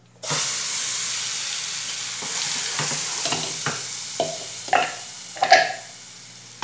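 A blended mix of tomato, bacon, garlic and onion hits a hot oiled saucepan and sizzles at once: the start of a sauté. The sizzle fades slowly, and a spoon scrapes and stirs in the pan in several short strokes over the second half.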